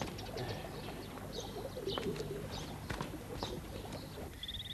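Birds chirping, with a dove cooing. Near the end the birdsong gives way to a steady, pulsing high trill of night insects.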